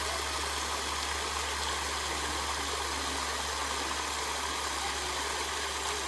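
Shallow creek water rushing steadily over limestone ledges, with a steady low rumble underneath.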